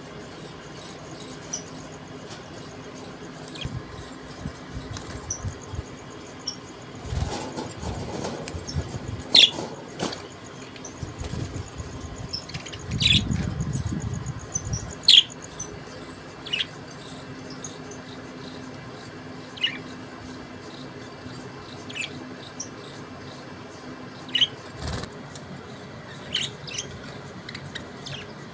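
Budgerigars chirping: scattered short, sharp chirps with a faint twittering beneath. A low rumble about halfway through and a few sharp knocks break in.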